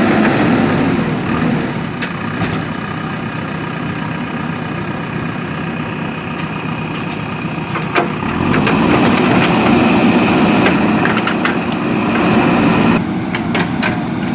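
JCB backhoe loader's diesel engine running steadily, with a single sharp knock about halfway through and a few lighter clicks near the end.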